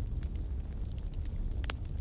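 Wood fire crackling in a fireplace: a steady low rumble with scattered sharp pops, the loudest one near the end.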